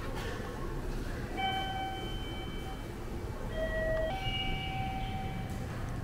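Slow electronic chime melody of long held notes, starting about a second and a half in and stepping between a few pitches, over a faint low hum.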